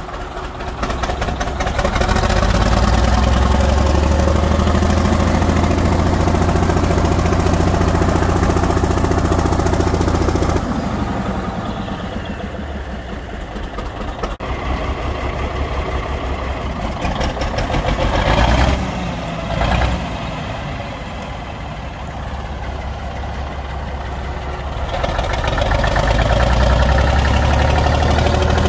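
1959 Kenworth truck's engine pulling under load as the truck drives through snow. It runs hard for the first several seconds, eases off to a lower note with two short bursts of throttle around the middle, then builds up again near the end.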